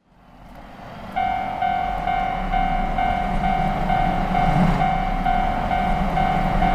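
Railroad crossing alarm ringing its repeating "kan-kan" tone about twice a second, starting about a second in, over the rumble of a train that swells in the first second.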